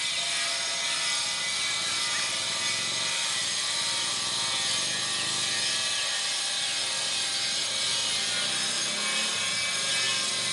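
Steady high-pitched insect chorus, with a few faint bird chirps over it.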